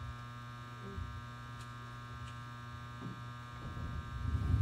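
Steady electrical mains hum with a thin buzz of higher overtones, and a low rumble that swells up near the end.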